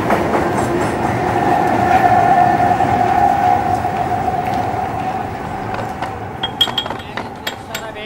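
Kolkata Metro train running, a steady rumble with a held electric whine that slowly fades away. A few sharp clinks come near the end.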